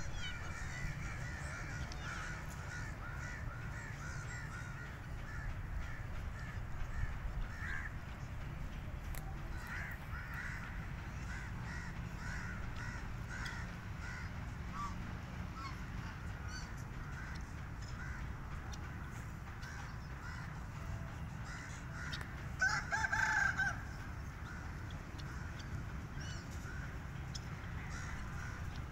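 Birds calling: many short repeated calls, with one louder call lasting about a second roughly three-quarters of the way through, over a steady low rumble.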